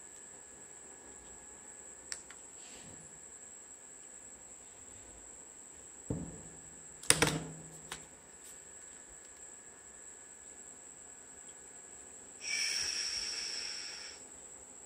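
Plastic clicks and knocks of a Vimble 2 handheld phone gimbal being handled, the loudest pair about six and seven seconds in, with a rushing sound of about a second and a half near the end. A steady high-pitched tone runs underneath.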